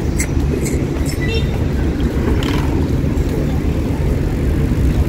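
City street traffic noise: a steady low rumble of passing cars.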